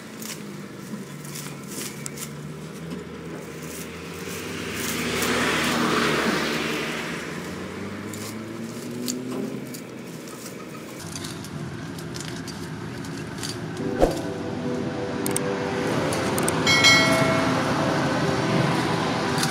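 Billhook sickle slashing vines on a chain-link fence: sharp snaps and rustling leaves. A swell of noise rises and falls around six seconds in, and a short bright ringing sound comes near the end.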